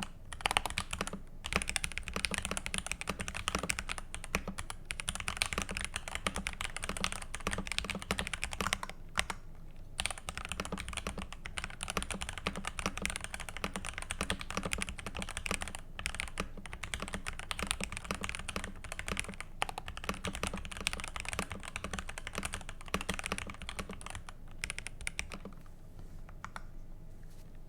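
Continuous typing on a Tester 68 mechanical keyboard with Gateron Pro linear switches, tape-modded and with tuned stabilizers: a steady run of key clacks with a short pause about a third of the way in, thinning out near the end.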